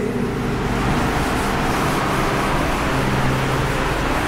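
Steady rushing background noise with a low hum underneath, even in level throughout, with no separate strokes or knocks.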